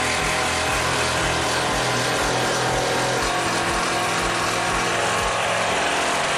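A power tool running steadily at high speed, working wood.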